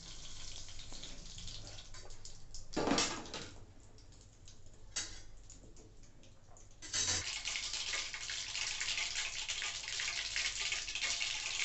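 Mustard seeds heating in hot oil in a stainless steel kadai: faint at first with a few scattered pops and a brief louder rush about three seconds in, then crackling and spluttering densely from about seven seconds on as the seeds begin to pop.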